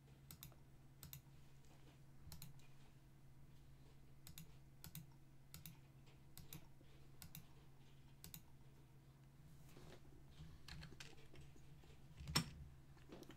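Faint, scattered clicks of a computer keyboard and mouse, one or two a second over a low steady hum. A louder click comes near the end.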